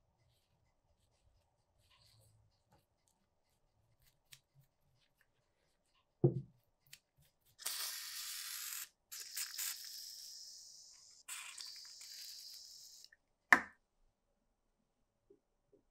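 A dull thump, then about five seconds of hissing in three separate stretches, then a single sharp knock near the end.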